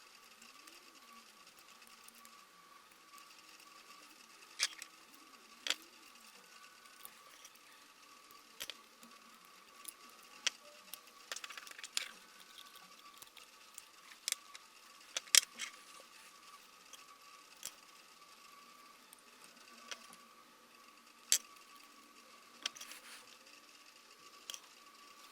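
Sharp metallic clicks and snaps at irregular intervals, the loudest around the middle, as hand tools work the nickel connector strips of a Hoover cordless vacuum's lithium-ion battery pack to disconnect its cells. A faint steady high whine runs underneath.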